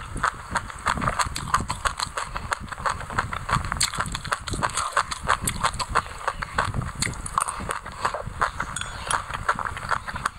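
Close-miked chewing of a mouthful of white sesame seeds with passion fruit pulp: dense, irregular crunching clicks, several a second.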